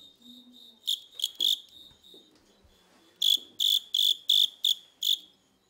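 Fighting cricket chirping in sharp, high-pitched bursts: three chirps about a second in, then a run of six at roughly three a second near the end.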